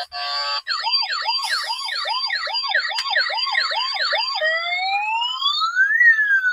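Electronic police siren from a battery-operated toy police car's speaker. A few short beeps open it, then a fast up-and-down yelp at about two and a half sweeps a second, which about four and a half seconds in changes to a slow rising and falling wail.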